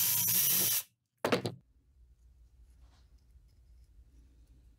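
Power drill with an 11/64 bit boring the rattle chamber into a carved wooden lure body: a steady motor whine that cuts off abruptly under a second in. A short loud burst follows about half a second later, then only a faint low hum.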